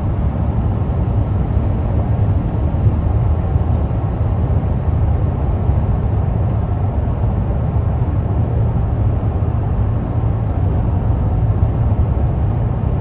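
Steady road noise inside a car's cabin at freeway speed: an even low rumble of tyres and engine.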